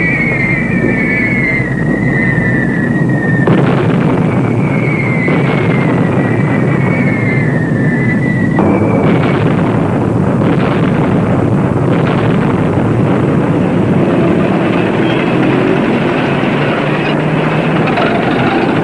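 Propeller warplane engines running, with a whine that falls in pitch twice in the first eight seconds. Then a dense steady engine roar with a few sharp knocks.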